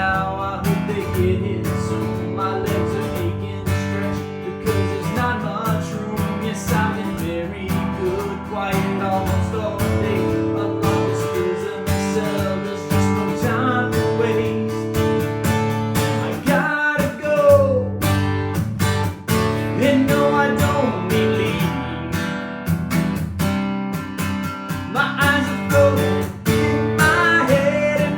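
Acoustic guitar strummed as a steady song accompaniment, with a few short sliding melodic lines over it about halfway through and near the end.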